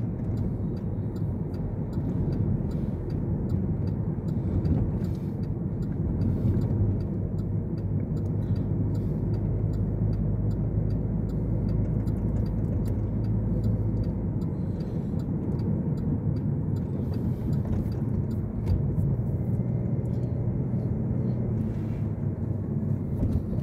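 A car being driven, heard from inside the cabin: a steady low rumble of engine and road noise. A deeper hum stands out for several seconds in the middle.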